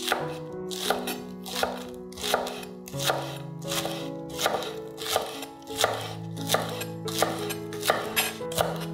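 Chef's knife chopping green onions on an end-grain wooden cutting board, a steady rhythm of about three crisp cuts a second. Soft background music with sustained notes underneath.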